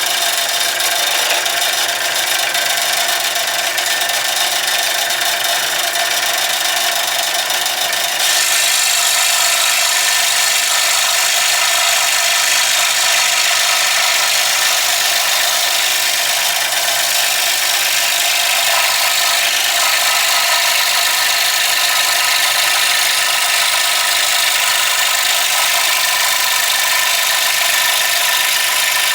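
Scroll saw running and cutting a push-stick shape out of 1/4-inch MDF, a steady buzzing of the motor and the rapidly reciprocating blade. It gets a little louder and brighter about eight seconds in.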